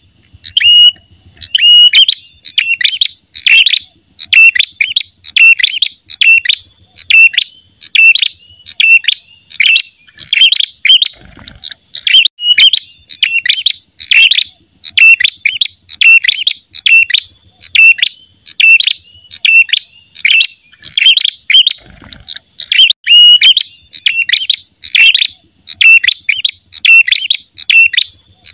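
Ashy tailorbird giving its loud, clear territorial "fighting" song: short, sharp, high chirping phrases repeated about twice a second without pause. This is the aggressive challenge call of a male.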